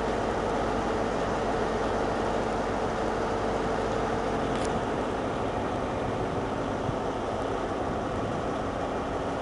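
Diesel train engines running steadily, a continuous rumble and hum whose pitch steps down about halfway through, with one short high click around the middle.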